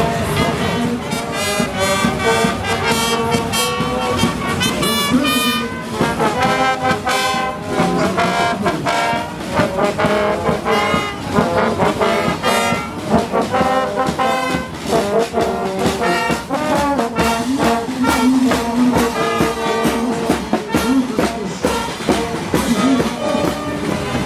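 Brass band playing, with a steady drum beat under the brass.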